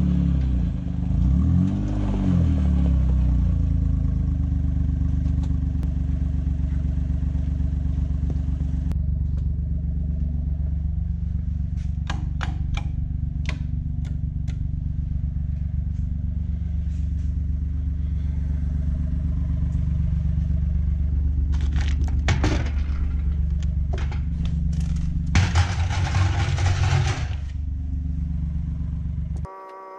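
A Gator utility vehicle's engine running as it is driven, a steady low drone whose pitch shifts a few times in the first seconds. It carries scattered rattles and clatter, with a louder stretch of rattling near the end, and the sound cuts off abruptly just before the end.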